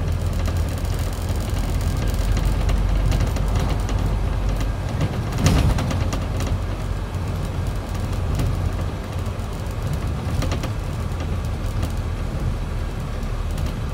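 A Scania Enviro400 double-decker bus on the move, heard from inside on the upper deck: a steady low engine and road drone with light rattles. A single thump comes about five and a half seconds in.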